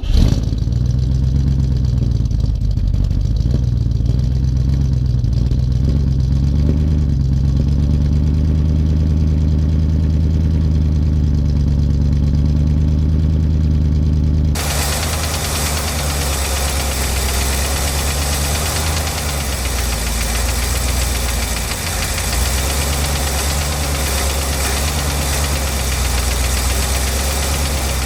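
Ford 400 V8 of a 1980 F-350, long out of use, catching and running steadily for about half a minute before shutting off just after the end. About halfway through a loud hiss suddenly joins the engine sound.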